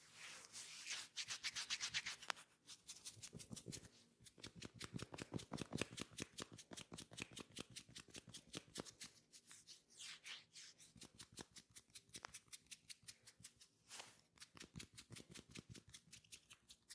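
Hands rubbing a client in an oil massage, in quick rhythmic strokes, several a second, with a few brief pauses.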